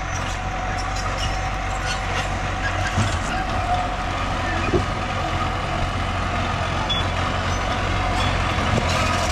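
Komatsu mini bulldozer's diesel engine running steadily under work, with a couple of short knocks about three and five seconds in.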